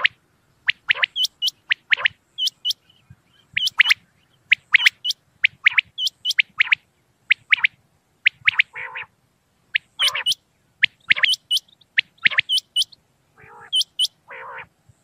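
Common quail calling: quick sharp whistled notes in runs of two or three, repeated over and over, with a few lower, harsher calls mixed in.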